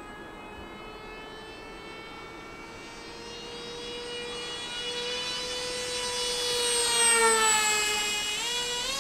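Z84 flying wing's battery-powered electric motor and propeller whining in flight, growing louder as it flies past, its pitch dropping at the loudest point about seven seconds in, then climbing again near the end.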